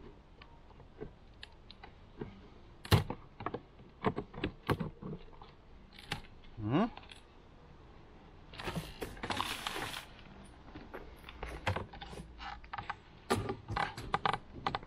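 Wooden beehive frames, glued in with propolis, being pried loose and shifted in the hive box: a run of sharp clicks, scrapes and knocks, with one louder knock about three seconds in. A burst of hiss lasting about a second and a half comes just past the middle.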